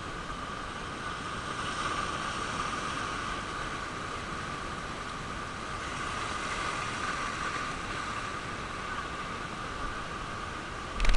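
Sea surf breaking and washing over shoreline rocks, a steady rushing hiss. A sudden loud bump comes right at the end.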